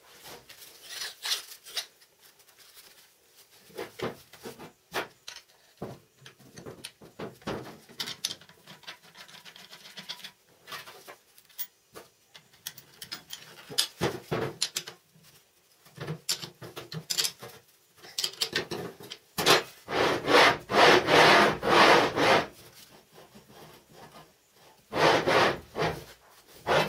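Clicks, knocks and rubbing of steel parts being handled as an angle grinder is fitted onto a homemade steel guide carriage with bearing rollers. Two longer stretches of rough scraping come in the second half, the longest about three seconds; the grinder is not running.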